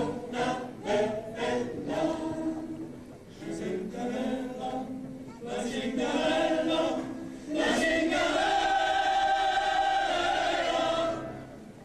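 Mixed choir of men's and women's voices singing in short phrases, then holding one long chord that stops shortly before the end.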